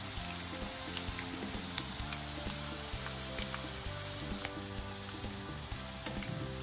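Oil sizzling steadily around chicken croquettes shallow-frying in a frying pan, with scattered small pops, under background music.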